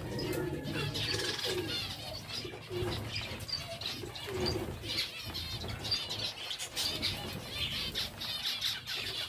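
A flock of zebra finches calling, many short chirps and beeps overlapping, with wing flutters as birds fly between perches.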